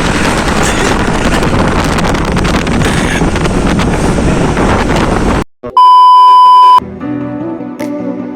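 Dense rushing noise with wind buffeting the microphone, cut off suddenly about five seconds in. A loud, steady electronic beep follows for about a second, then background music starts.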